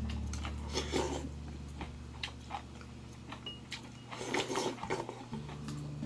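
A person biting and chewing crunchy food close to the microphone, with a few louder crunches, over soft background music with sustained bass notes.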